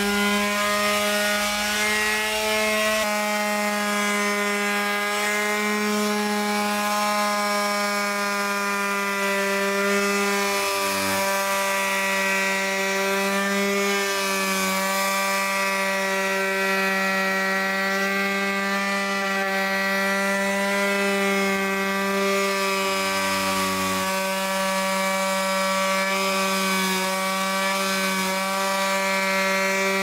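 Electric detail sander running steadily against red cedar boards, sanding them down. It makes a continuous motor hum with small shifts in pitch a few times.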